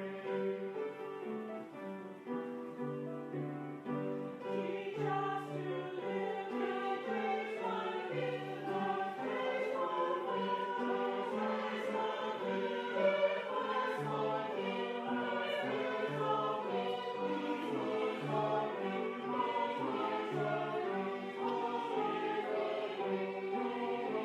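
Choir singing in held chords that change about every second, as in church hymn music.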